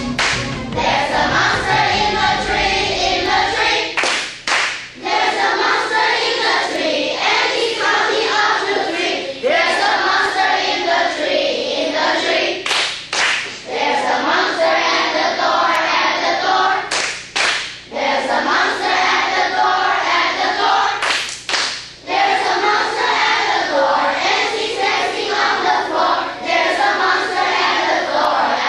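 A class of children singing an English song together, with hand clapping to the beat.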